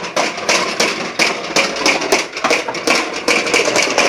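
Popcorn popper clattering: a fast, loud stream of sharp plastic pops and knocks, several a second, used as a loud sound to desensitize dogs.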